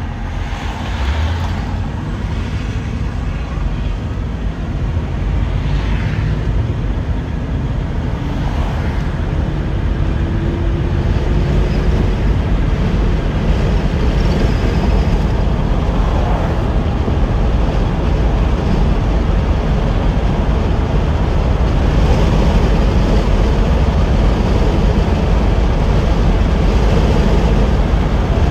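1984 Chevrolet El Camino SS on the move, heard from inside the cab: engine and road noise that grow gradually louder as it pulls away and picks up speed, then settle into a steady cruise.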